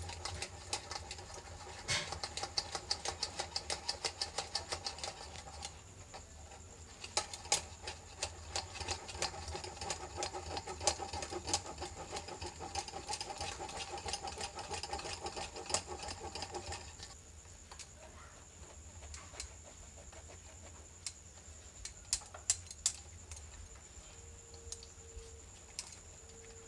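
Mango pulp being rubbed by hand through a stainless-steel mesh strainer into a steel bowl: rhythmic scraping strokes, about three a second, that stop about two-thirds of the way through, followed by a few light metal clicks. A faint steady hum runs underneath.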